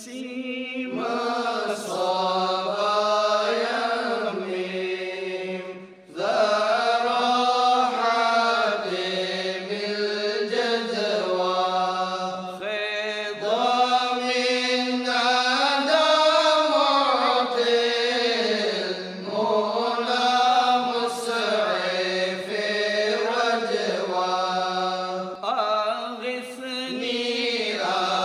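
A single voice chanting an Arabic marsiya (elegy) unaccompanied, in long, slowly sliding held notes, pausing briefly for breath between phrases.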